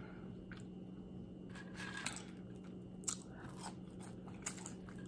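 A person eating barbecue ribs and french fries: chewing and biting, with a scattering of short, crisp crunches and wet mouth clicks.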